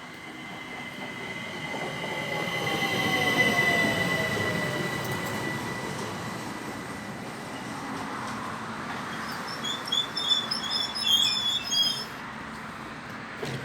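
ÖBB passenger train arriving and braking, its wheels squealing on the rails: a long high squeal with lower tones sliding down as it slows, loudest a few seconds in, then a run of short, sharp squeals near the end as it draws to a stop.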